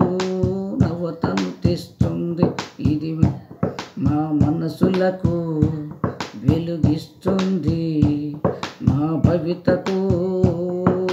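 A man singing a Telugu children's action song without instruments, with sharp percussive clicks keeping the beat.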